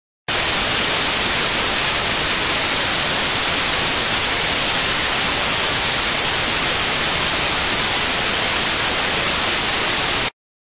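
Loud, steady static hiss like white noise, with no rhythm or tone, which starts suddenly and cuts off abruptly about ten seconds in.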